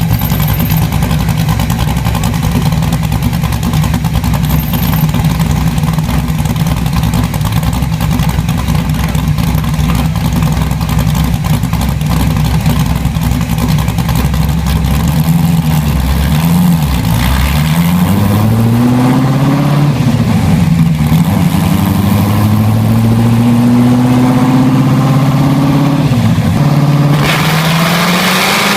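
An engine running at a steady speed, then revved up and down several times in the second half, its pitch rising and falling with each rev.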